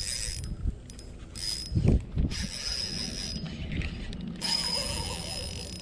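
Spinning reel cranked in four short bursts, winding in line with a whirring gear whine. A dull thump about two seconds in is the loudest sound.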